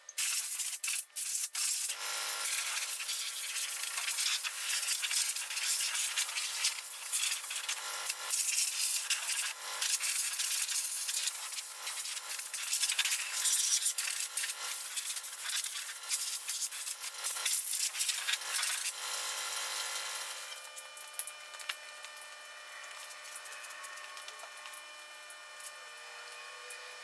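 Compressed-air blow gun hissing in long, uneven blasts as dust is blown off a band saw. After about 20 seconds it stops and a quieter rubbing follows as a rag wipes the saw's cast frame.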